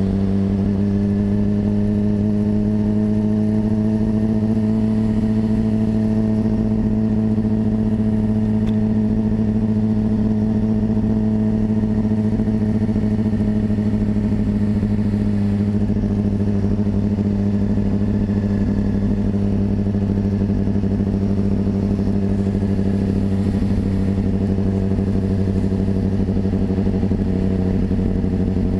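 Motorcycle engine running at a steady cruise while riding, its pitch rising slightly in the first few seconds and then holding even.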